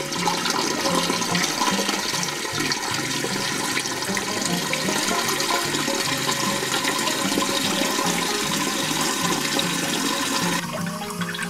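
Toilet cistern's float-ball fill valve refilling the tank: water jets from the valve outlet and splashes into the tank water with a steady rushing hiss. The rush stops abruptly near the end.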